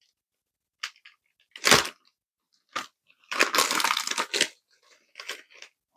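A plastic poly mailer bag being crinkled and torn open by hand: a few short crinkling rustles, then a longer tearing rustle about three and a half seconds in.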